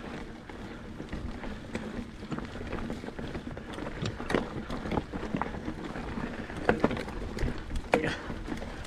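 Mountain bike riding over a rocky trail: steady tyre rumble with frequent clicks and knocks from the bike rattling over rocks, and a few sharper knocks near the end.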